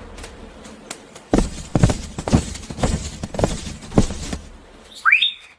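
A series of about seven soft thuds, roughly two a second, like footsteps, followed near the end by a short rising whoosh.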